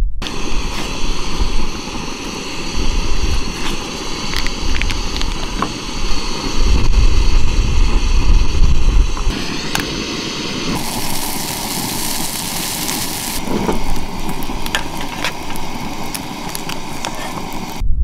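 Canister backpacking stove burning under a small frying pan, a steady hiss with food frying in the pan, in several short cuts, with a brighter sizzling hiss for a couple of seconds past the middle. Wind rumbles on the microphone in gusts, and there are a few small clicks of utensils and packaging.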